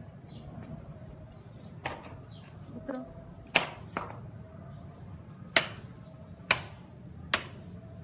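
A series of about seven sharp, separate clicks or snaps at uneven intervals, two of them much louder, over a low steady hum.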